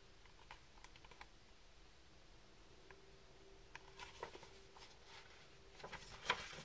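Faint rustles and soft taps of a picture book's paper pages being turned and handled, over near-silent room tone; the clearest tap comes near the end.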